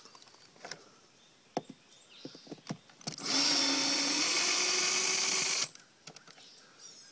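Power drill running steadily for about two and a half seconds, drilling out a rivet that holds the boat's top cap, then stopping abruptly; a few light clicks and taps come before it.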